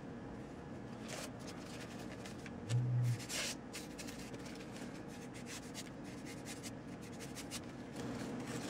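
Faint rubbing and light clicks of hands handling a thin plastic credit-card folding knife. About three seconds in there is a short low hum.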